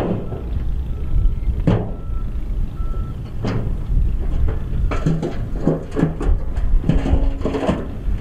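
Dump truck's diesel engine running with a steady low rumble while its hydraulic hoist tips the loaded bed. Single knocks come about every second and a half early on, and more frequent clatters in the second half.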